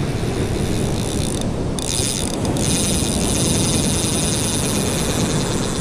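Steady wind rumble on the microphone over surf washing up the beach, with a high hiss that drops out briefly twice.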